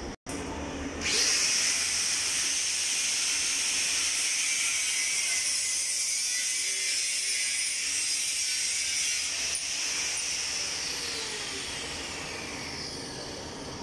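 Angle grinder cutting into a steel railing pipe, starting about a second in with a loud, steady high-pitched grinding whine. Near the end the whine slowly falls away as the disc winds down.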